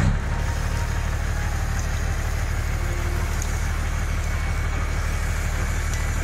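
Tractor engine running steadily at idle, a low rumble with an even, rapid pulse that cuts in suddenly at the start.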